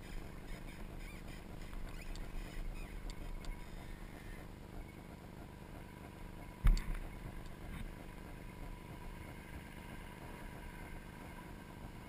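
Off-road vehicle engine running steadily at low revs, with one sharp thump a little past halfway.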